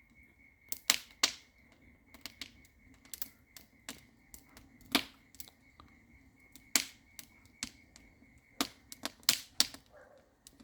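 Wood fire crackling: irregular sharp pops and snaps, the loudest around one second in, near the middle and about three-quarters through, over a faint steady high tone.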